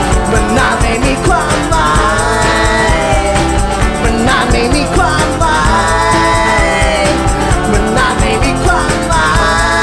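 Live acoustic band music: acoustic guitars strumming over a steady beat, with a male lead voice singing long, bending lines.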